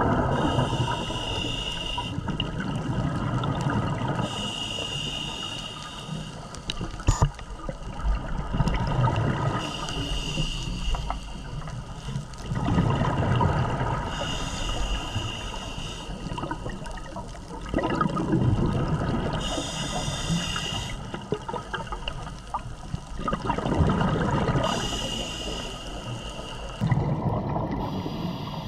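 Scuba diver breathing through a regulator underwater, about every five seconds: each breath a hiss from the regulator, then a rush of exhaled bubbles. A single sharp click comes about seven seconds in.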